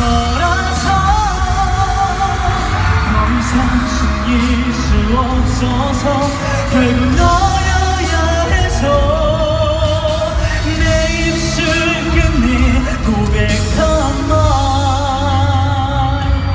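A man singing a pop song live into a handheld microphone, with held, wavering notes, over a backing track with a heavy steady bass, heard through a concert hall's PA system.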